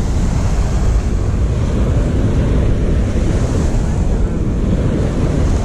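Ocean surf washing on the shore, with wind buffeting the microphone in a steady low rumble.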